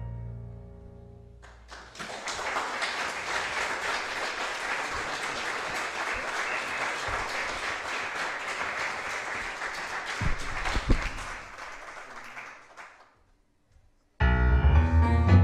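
A tango quintet's last held chord dies away, then the audience applauds steadily for about eleven seconds before the clapping fades out. About fourteen seconds in, the bandoneón, violin, piano, double bass and electric guitar start the next piece abruptly and loudly.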